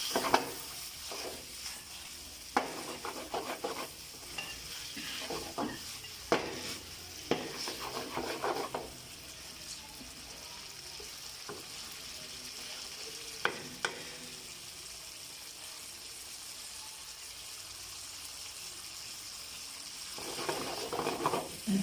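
Chicken pieces frying in a pan with a steady sizzle, stirred with a spoon: scattered scrapes and knocks of the spoon against the pan over the first part and once more midway, then just the sizzle for a while before stirring picks up again near the end.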